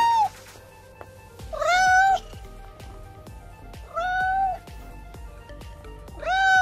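A cat meowing repeatedly: long drawn-out meows about every two seconds, each rising then falling in pitch, over background music with a steady beat.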